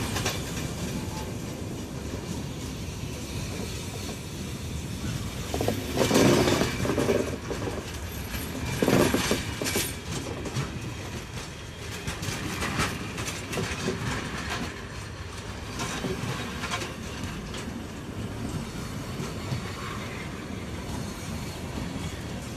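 Steady mechanical rumble with irregular clatter and knocks, louder around six and nine seconds in.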